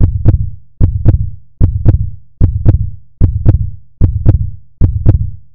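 Heartbeat sound effect in a steady loop: a lub-dub double beat over a low thump, repeating about every 0.8 seconds, roughly 75 beats a minute.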